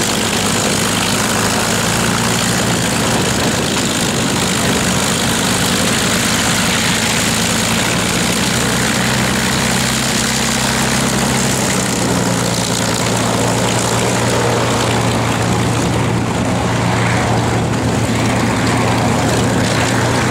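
A P-51 Mustang's V-12 piston engine running at low taxi power, its propeller turning, in a steady drone. The tone of the drone shifts a little around the middle as the fighter rolls away.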